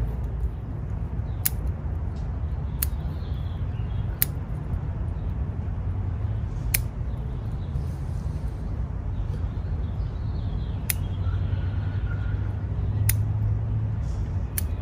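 Bonsai scissors snipping twigs and weak growth off a Monterey cypress: about seven sharp, short snips at irregular gaps of one to four seconds, over a steady low rumble.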